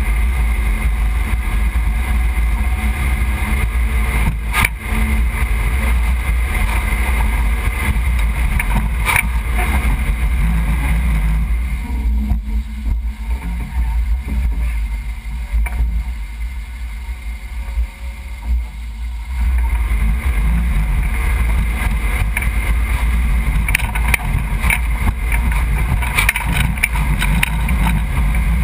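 1991 Range Rover Classic's 3.9-litre V8 running low and steady as it crawls up rock ledges, easing off and going quieter for several seconds in the middle. A few sharp knocks sound about four and nine seconds in, with several more near the end.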